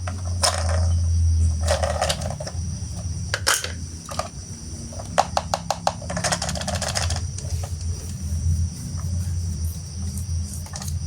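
Plastic toy train pieces clicking and clattering in quick irregular taps over a steady low hum.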